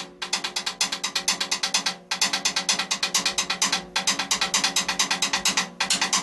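Fast, even clicking percussion in a music piece, about eight sharp strokes a second in phrases of roughly two seconds with short breaks, over faint held notes. The full drum kit comes in at the very end.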